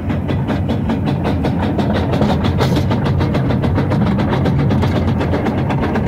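Exhaust beats of a 1905 Bagnall narrow-gauge steam locomotive working along the line: a rapid, even chuffing, several beats a second, over the low rumble of the running engine.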